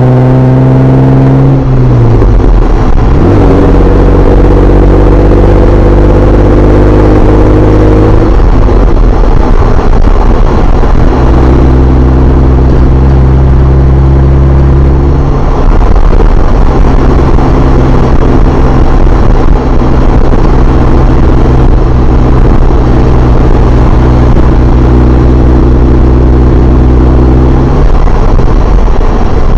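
Jeep Wrangler JKU's 3.6 L Pentastar V6 running through an aFe 3-inch catback exhaust. The revs fall in the first two seconds, then settle into a steady note that shifts a few times. The recording is loud and distorted from bad export settings.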